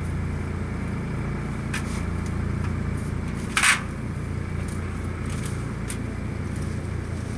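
An engine running steadily, a low even hum. About three and a half seconds in there is one short, sharp noise, with a few faint clicks around it.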